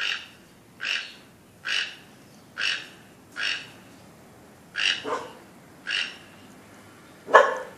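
A bird calling over and over in short calls, roughly one a second, with a louder, lower call near the end.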